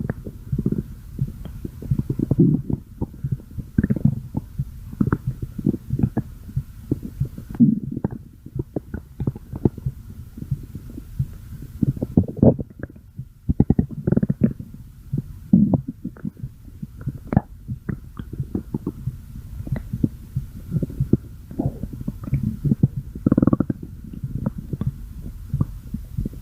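A person's stomach growling: a continuous run of irregular, low-pitched gurgles and rumbles, one after another with only brief gaps.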